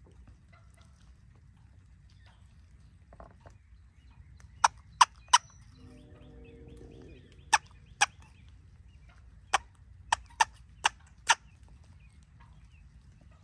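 Turkey hen calling close by in loud, short, sharp notes: a run of three, then two, then five. A fainter, lower gobble lasting about a second comes in between.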